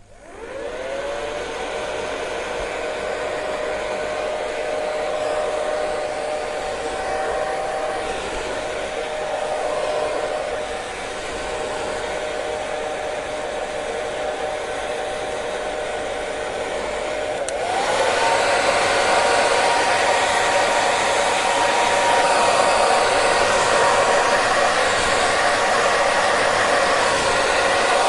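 Hair dryer switched on, its motor whine rising as it spins up, then running with a steady rush of air. About two-thirds of the way through a click is followed by the whine climbing to a higher pitch and the sound getting louder.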